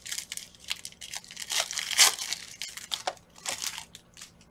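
A foil-wrapped Panini Prizm football card pack being torn open by hand, its wrapper crinkling and crackling in a fast run of small crackles, loudest about two seconds in and fading out near the end.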